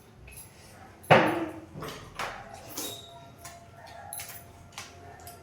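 A loud knock about a second in, then scattered small clicks and clinks of eating at the table.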